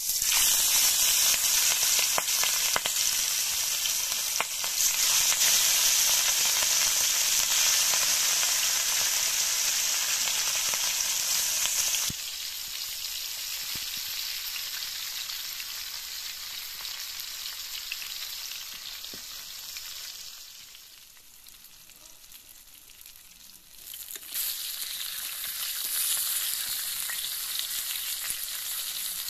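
Turmeric-marinated fish steaks sizzling as they shallow-fry in hot oil in a pan. The sizzle starts suddenly as the first piece goes into the oil and is loudest for about twelve seconds, drops abruptly, fades further for a few seconds, then picks up again near the end.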